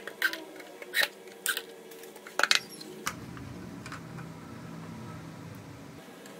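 Small sharp metallic clicks and clinks of screws and a drill driver bit being worked into a wooden speaker baffle, a handful of separate ticks over the first two and a half seconds. A low steady hum follows from about three seconds in.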